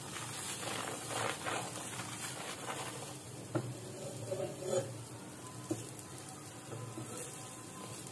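Egg paratha sizzling in ghee on a cast-iron tawa while a spatula presses and scrapes across it. A few light knocks come in the middle.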